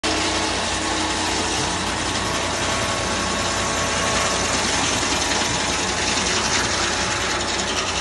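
Foley Belsaw circular sawmill running: a loud, steady mechanical whir and rattle with a constant hum.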